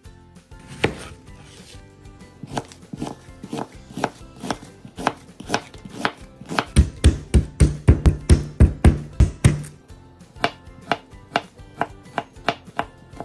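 Chef's knife slicing a white onion and then garlic cloves on a plastic cutting mat: a series of sharp knocks on the board, quickening to a fast run of chops in the middle, then slower single cuts near the end.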